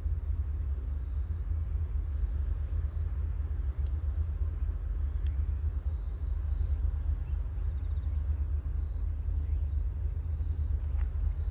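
Low, flickering rumble of wind on the microphone at an open shoreline. Insects chirp high and faint in a steady pulsing rhythm throughout.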